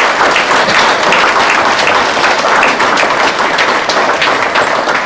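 Audience applauding: many hands clapping together in a steady, dense patter.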